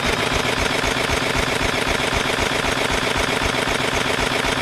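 Electric starter cranking a flathead lawn tractor engine with its spark plug out, powered from a jump pack, for a spark test: a steady fast whirring with rapid, even pulses.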